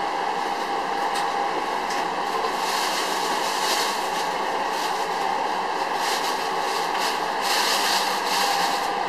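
Steady drone of commercial kitchen equipment running: an even, fan-like rush with a constant faint whine and a few light clicks.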